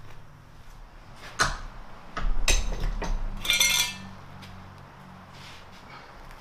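Metal clinks and clatter from metal parts being handled on a workbench. There are a couple of sharp knocks about a second and a half in, then a louder clattering rattle from about two to four seconds in.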